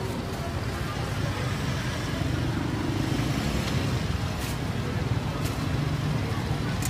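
Steady low rumble of street traffic, with a few light clicks.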